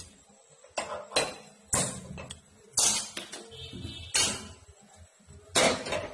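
Metal cookware clanking against a steel gas stovetop: about seven sharp knocks at uneven intervals, the loudest near the end as a steel pot is set down on the lit burner.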